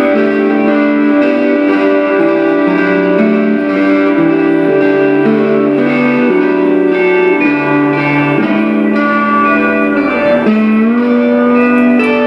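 Improvised guitar music: layered held notes that shift in pitch step by step, with a slide down and back up about ten seconds in.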